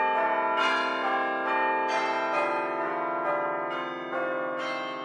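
Bells ringing in a sequence: several strikes, each ringing on under the next, fading slowly toward the end.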